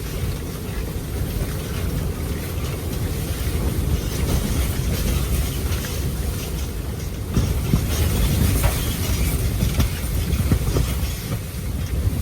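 Strong blizzard wind blowing in gusts, with a heavy low rumble from the wind hitting the microphone.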